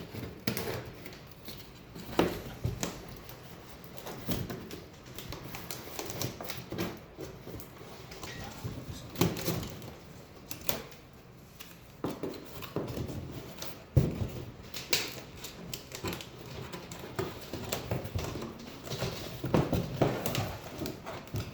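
Umbrella display rack parts being handled and fitted together: irregular clicks, knocks and clatter as the pieces are positioned and pressed into place.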